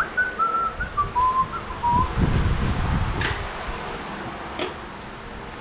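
A person whistling a few short notes of a tune that step downward, then low knocks and a couple of sharp metallic clicks from tool work on the engine.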